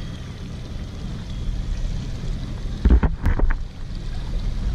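Personal watercraft (jet ski) running at slow trolling speed, a steady low engine rumble mixed with water wash against the hull. A short cluster of knocks sounds about three seconds in.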